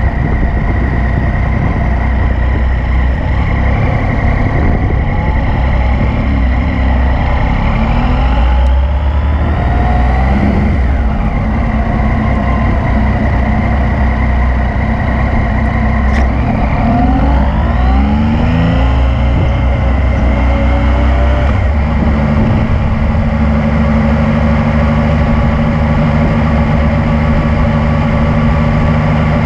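Yamaha MT-09's inline three-cylinder engine running on a ride, its pitch rising and falling twice with the throttle, then settling into a steady note about two-thirds of the way through.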